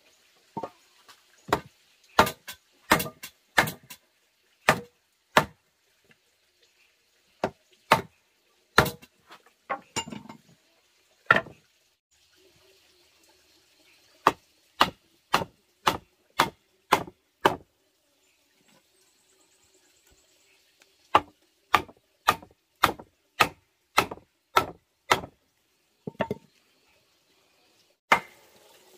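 Hammer blows on a wood chisel chopping a mortise into a timber beam, struck in runs of about two blows a second with short pauses between runs.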